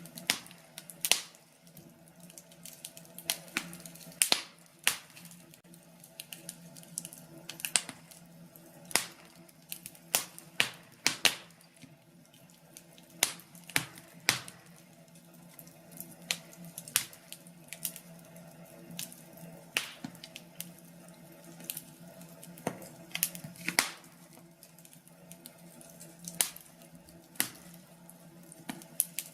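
Wood fire burning in a fireplace, crackling and popping irregularly, with a faint steady hum underneath.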